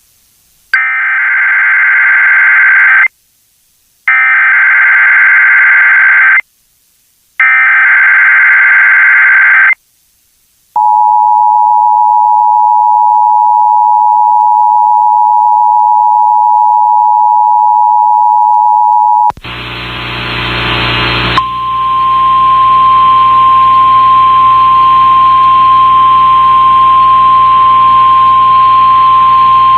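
Emergency Alert System test tones. Three screeching SAME data bursts, each about two seconds long, come first, then the steady two-tone EAS attention signal for about eight seconds. After that comes a burst of radio static and hum, and then a single steady tone near 1 kHz over the hiss.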